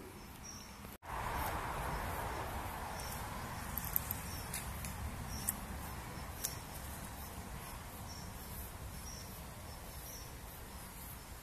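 Steady outdoor riverside background noise with faint, high insect chirps repeating at an even pace, about one every half second or so. A few sharp clicks stand out in the middle.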